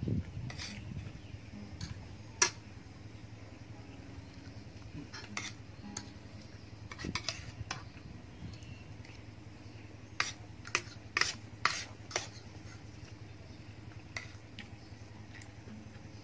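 Spoon and fork clinking and scraping against a plate while a man eats rice: scattered sharp clicks, a cluster of them near the end, over a steady low hum.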